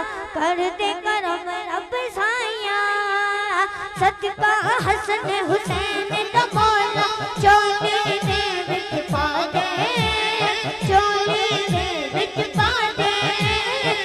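A boy singing a devotional naat through a microphone, his line wavering in quick melodic runs. About four seconds in, a steady low beat of short, pitch-dropping strokes joins the voice.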